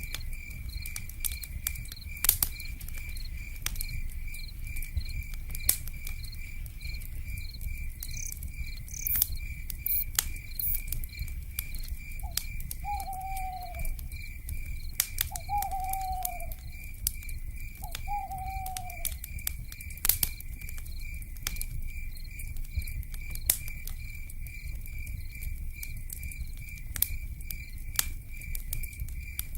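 Crackling campfire with irregular sharp pops and snaps over a low rumble, an insect chirping in a steady fast pulse throughout. Partway through, an owl calls three times, each note sliding down in pitch.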